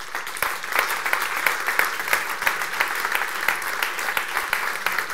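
Audience applauding: dense, steady clapping from many hands that breaks out suddenly at the start.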